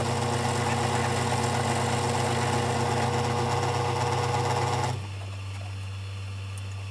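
Small benchtop metal lathe running steadily, its motor and gearing whirring during a light cut, then switched off about five seconds in. A steady low hum remains afterwards.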